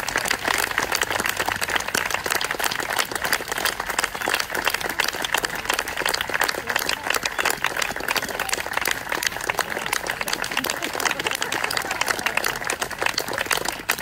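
Audience applauding steadily, many hands clapping together.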